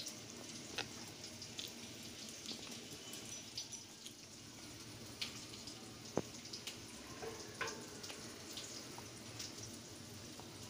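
Small prawns being cleaned with a knife over a stainless steel sink: faint scattered clicks and drips, the sharpest about six seconds in, over a low steady hiss.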